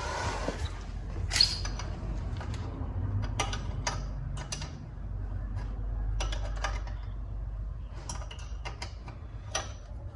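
A 15 mm wrench tightening the front axle nuts of an electric bike: irregular metallic clicks and taps as the wrench is set on the nut and turned, with the odd creak.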